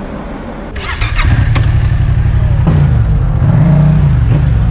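Yamaha MT-07 parallel-twin engine breathing through a full titanium Akrapovic exhaust with its dB killer fitted. It comes up loudly about a second in, then runs with a couple of dips and rises in pitch from throttle blips as the bike pulls away.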